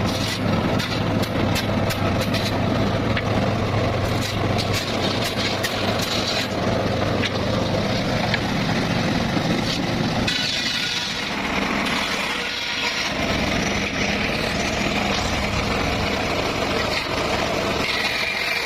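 Circular saw running and cutting petung bamboo over a steady engine drone, with scattered sharp clicks and knocks in the first half. The sound changes about ten seconds in, and a high steady whine comes in near the end.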